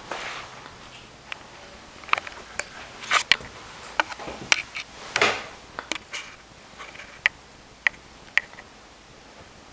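Irregular sharp clicks and knocks, about a dozen, some with a short ringing tone, and a longer sweeping scrape about five seconds in.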